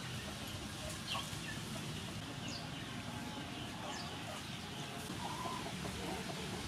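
Chickens clucking faintly, with a few short, high bird chirps scattered through, over steady low background noise.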